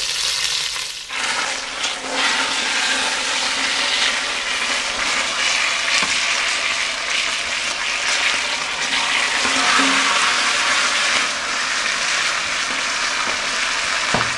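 Raw chicken drumsticks searing in hot oil in a cast-iron Dutch oven: a steady sizzle that grows fuller about a second in.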